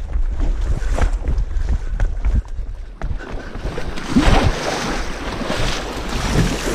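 Wind buffeting a carried camera's microphone during a run on a mud obstacle course, a constant low rumble with many short irregular knocks of handling and footfalls. About four seconds in, a louder rushing hiss joins.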